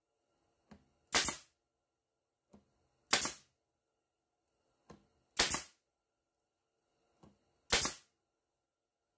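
Pneumatic brad nailer firing four times, about every two seconds, driving brad nails through a thin particle-board piece into a cedar frame; each sharp shot is preceded by a faint click about half a second before.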